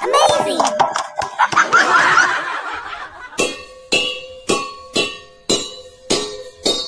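Laughing voices, then the two balls of a lato-lato clacker toy knocking together in a steady rhythm about twice a second from about three and a half seconds in.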